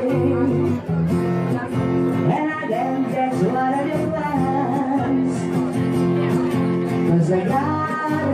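Live acoustic band music: guitar over held chords, with a melody line gliding above it.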